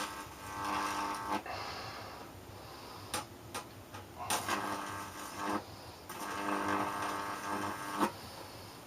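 Microwave oven transformer, fed through ballasts, buzzing under load as its high voltage is put across a compact fluorescent lamp's circuit board. The buzz comes in three bursts, each started and stopped by a sharp snap, with a couple of separate pops between the first and second.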